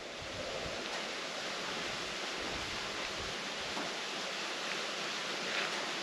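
Steady, even outdoor background hiss, with a few faint light taps.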